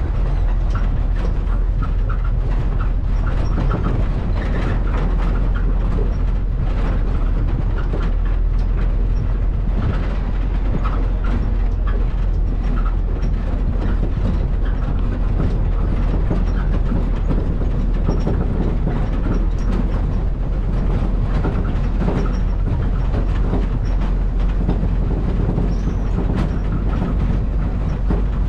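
Road noise inside a moving vehicle: a steady low rumble with frequent rattles and knocks.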